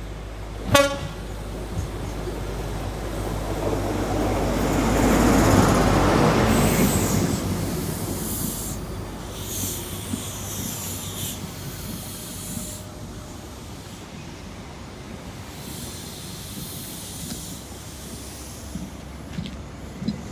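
A brief toot of a train horn, then a train passing through the station: its rumble swells to a peak about five or six seconds in and then fades away.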